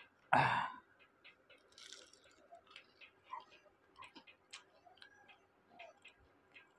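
Chewing crisp fried onion pakora, with scattered small crunches and wet mouth clicks. A loud breathy burst, like a sharp breath or sniff, comes about half a second in.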